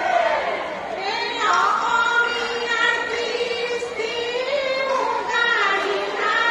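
A high voice singing a melody of long held notes that glide up and down between pitches, with little accompaniment.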